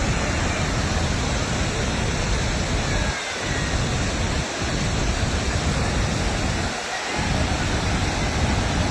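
Rushing floodwater: a loud, steady roar. The low rumble in it drops away briefly three times.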